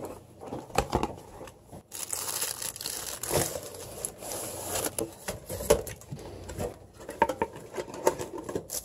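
Plastic bag and cardboard packaging crinkling and rustling as binoculars are unboxed by hand, heaviest from about two to four seconds in, with scattered clicks and knocks of the box being handled.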